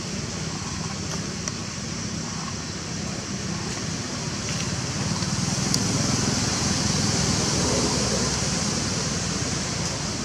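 Steady outdoor background noise: a low rumble under a constant high hiss, with a few faint clicks, growing a little louder around the middle.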